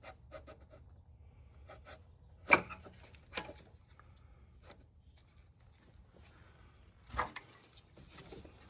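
Scattered clicks and knocks of metal parts and tools being handled while a diesel injector is worked into the engine. The loudest is a sharp knock about two and a half seconds in, and there is a duller thump near the end.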